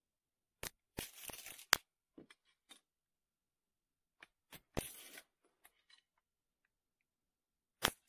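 Matches struck against a matchbox three times, each a sharp scrape with a brief sputter that dies away; the matches are damp and slow to catch.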